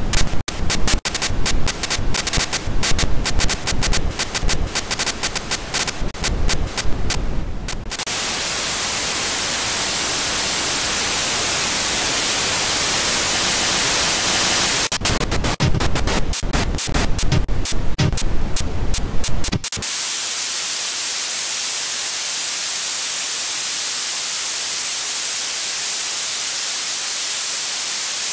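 Artificial white-noise static made from scanned paper. It stutters and crackles for the first eight seconds, settles into a steady hiss, breaks up into choppy crackle again about fifteen seconds in, and from about twenty seconds in turns to a steady, thinner hiss with the bass gone.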